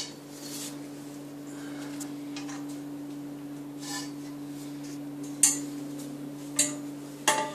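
Metal frame tubes of a baby cradle clinking and knocking as they are handled, with three sharp knocks in the second half, over a steady low hum.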